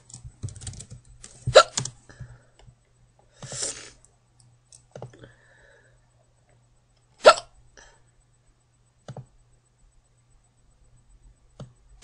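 A girl's hiccups: sharp, sudden gulps, the two loudest about a second and a half in and about seven seconds in, with fainter ones between.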